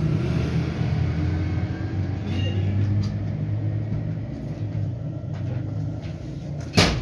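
Steady low rumble with a few light handling ticks, then a short, loud spritz of water from a spray bottle onto the cloth just before the end, dampening the boski fabric before pressing.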